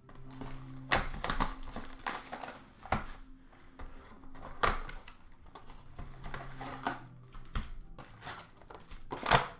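Cardboard blaster box of hockey cards being handled and torn open by hand: a run of short rustles, scrapes and clicks, the loudest near the end.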